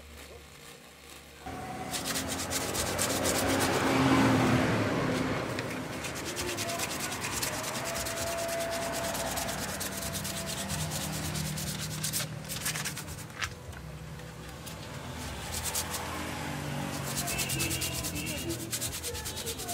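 A steel blade scraping and shaving a block of wood, in quick, uneven rasping strokes that start after a quieter first second or so.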